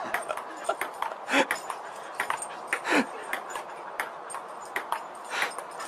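A dog making three short sounds, each falling in pitch, with light clicks in between.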